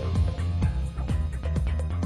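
Background music with a steady beat and a low sustained bass.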